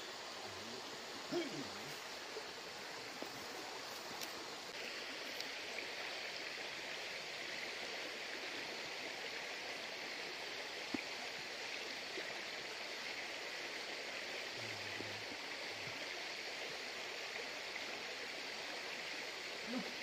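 Steady rushing of flowing river water, getting a little brighter about five seconds in.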